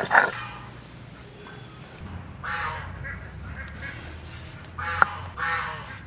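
Ducks quacking: two louder calls, about two and a half seconds in and again near the end, with fainter calls between them. A single sharp knock comes just before the second loud call.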